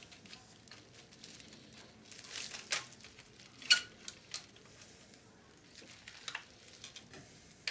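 Small clicks, taps and crinkling rustles of hands working the plastic parts and wiring of a cassette recorder chassis resting on bubble wrap. The loudest is a sharp click with a short ringing tone about three and a half seconds in.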